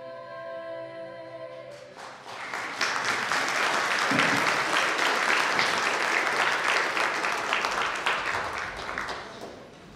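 A small group of singers holds the final note of the national anthem a cappella, then a hall full of people applauds, loud for several seconds before dying away near the end.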